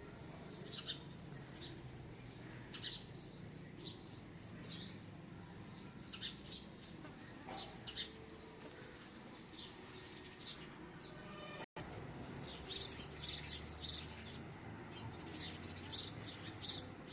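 Small birds chirping: many short, high chirps repeating irregularly over a faint low background hum. The sound cuts out for an instant about twelve seconds in, and after that the chirps come louder and closer together.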